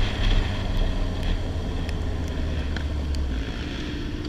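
Sportbike engine running under way, heard from a helmet-mounted camera with wind noise, growing gradually quieter as the bike slows.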